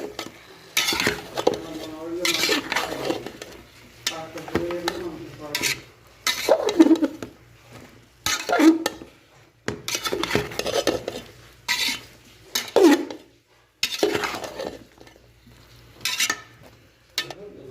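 A spoon stirring and scraping bottle gourd and spices around a cooking pot in irregular strokes, the pot giving short rings, over a light sizzle as the gourd sautés.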